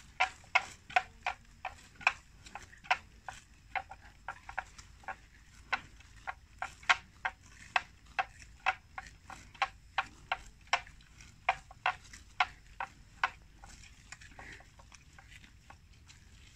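Water buffalo chewing water plants, a run of sharp crunching clicks at roughly two a second that stops about thirteen seconds in.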